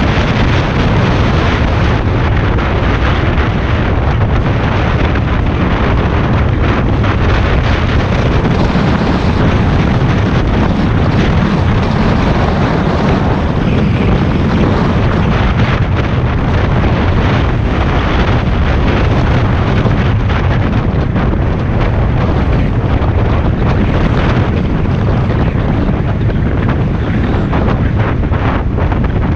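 Wind buffeting the action camera's microphone on a moving Honda XRE 190 motorcycle at around 60 km/h, a loud steady rush, with the bike's single-cylinder engine running underneath.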